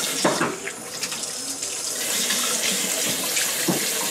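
Water running steadily from a tap into a sink, with a brief knock near the start and another near the end.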